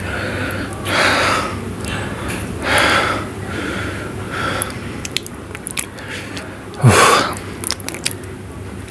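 A person breathing hard through the mouth between mouthfuls, with heavy puffs of breath about every two seconds and small wet chewing clicks. About seven seconds in comes the loudest, longer exhale, with a low vocal note that falls in pitch.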